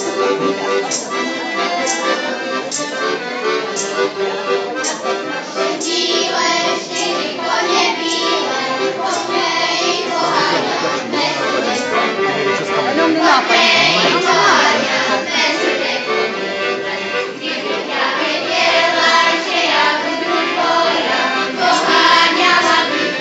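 An accordion plays a folk tune. From about six seconds in, a group of children sing along.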